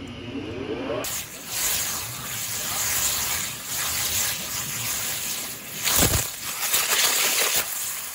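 A high-pressure waterjet pump winding up with a rising whine, then a 60,000 psi abrasive waterjet stream blasting onto the drive gear of a homemade water-powered chainsaw: a loud steady hiss of the jet with splashing water, and a heavy thump about six seconds in. The jet lacks the power to get the gear train and chain turning.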